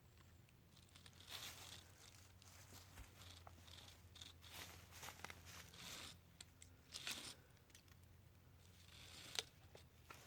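Faint, intermittent rustling and scraping as cord is pulled and tied off around a tree for a ridgeline, with a few short louder scuffs about a second in, near the middle and near the end.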